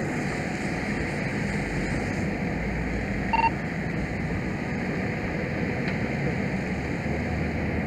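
A fire engine running, heard as a steady noise from inside its cab, with a short radio beep about three and a half seconds in.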